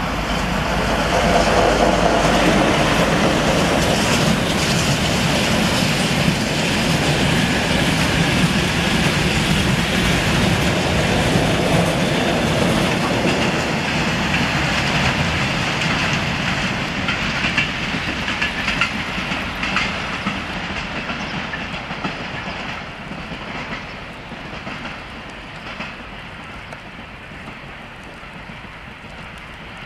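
CFR LDH diesel-hydraulic locomotive passing at the head of a freight train of tank wagons, its engine loudest in the first few seconds. The wagons then roll by with a clicking of wheels over rail joints, and the sound fades away over the last third.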